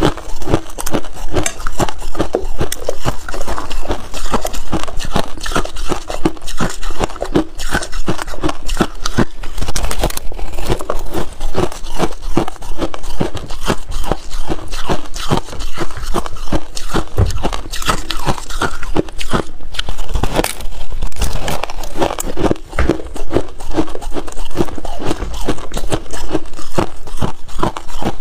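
Crushed ice being bitten and chewed close to the microphone: rapid, continuous crunching and crackling of the ice shards.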